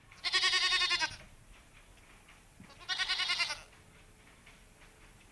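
Goat bleating twice, two quavering calls, the first about a second long and the second, shorter one about three seconds in.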